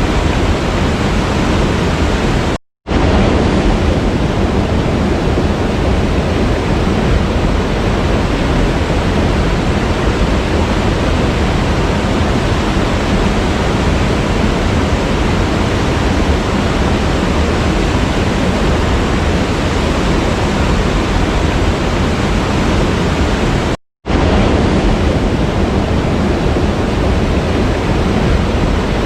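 Waterfall rushing steadily, a dense even roar of falling water. It cuts to silence for a split second twice, about three seconds in and about five seconds before the end.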